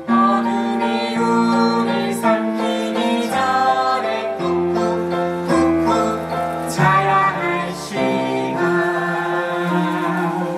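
A stage-musical song: singing voices holding long notes over instrumental accompaniment.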